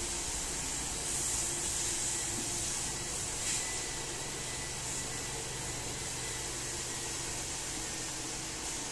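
Baby-bottle steam sterilizer running after being switched on, giving a steady hiss of steam.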